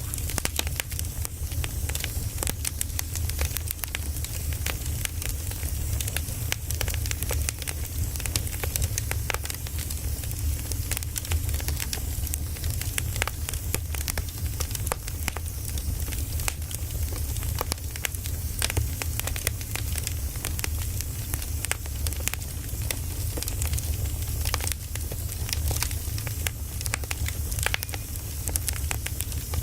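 Firewood burning, with constant irregular crackles and pops over a steady low rumble.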